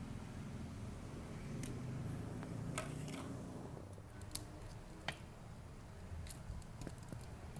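Plastic parts of an action figure clicking and tapping as hands handle an accessory hand piece and fit it onto the figure's forearm: about half a dozen separate sharp clicks, spread out, over a faint low hum.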